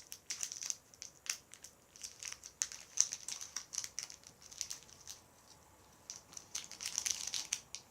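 Irregular crackling and crinkling clicks from slime being handled and squeezed, louder about three seconds in and again near the end, with a quieter pause in between.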